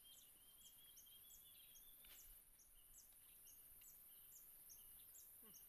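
Faint riverside nature ambience: insects droning steadily at a high pitch, with a bird repeating short high chirps about twice a second.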